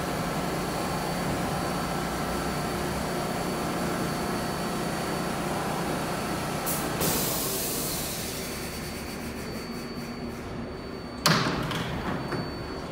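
R188 subway train standing in the station: a steady hum of its onboard equipment with a thin high whine, a burst of air hiss a little after halfway that fades away, and one sharp bang near the end, the loudest sound.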